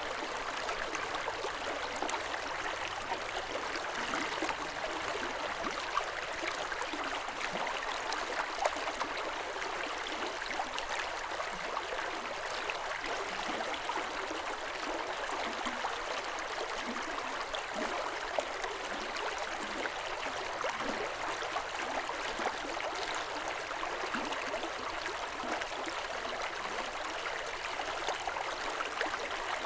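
River water running over stones: a steady rushing burble with many small splashes and gurgles.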